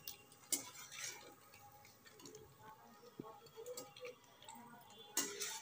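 Scattered light clinks and taps of a steel spatula against the pan and a steel bowl as fried paneer cubes are lifted out of the oil and set down, the loudest near the end.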